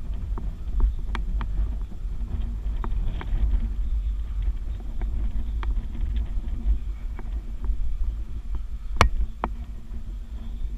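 Wind buffeting the action camera's microphone as a steady low rumble, with scattered light clicks and taps from hands gripping the steel tower framework. One sharper knock comes about nine seconds in.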